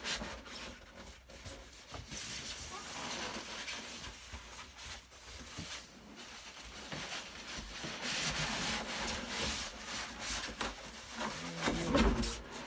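Foam packing box scraping and rubbing as it slides out of a large cardboard box, in uneven pushes, with a few low bumps near the end as the cardboard box tips.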